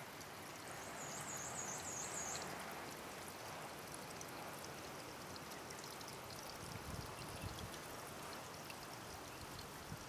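Steady running-water sound of water trickling and lapping at the shallow edge. About a second in, a brief high-pitched warbling chirp sounds over it.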